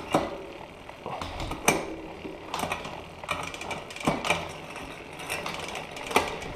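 Mountain bike drivetrain turning over: the chain running over a newly fitted Shimano 11-46 cassette, with a ratcheting rattle and a sharp click about once a second.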